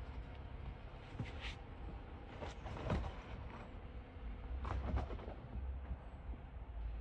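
Jeep Gladiator Rubicon on an off-road trail: a steady low engine rumble with clusters of clunks and rattles about a second in, around three seconds in and again around five seconds in.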